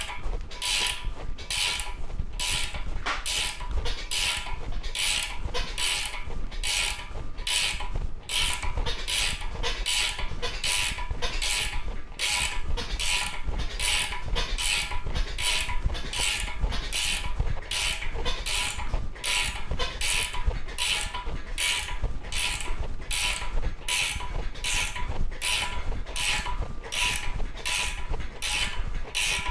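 Ratchet wrench clicking in quick, even strokes, about one and a half a second, as it turns the driver nut of a screw-type bushing puller. The puller is drawing the tight jackshaft bushing out of a Jaguar V12 engine block.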